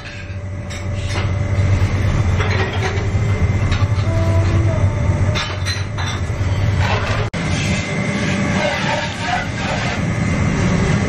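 Steady low rumble and hum of commercial kitchen oven and fan machinery, with a faint steady high whine and a few light clatters.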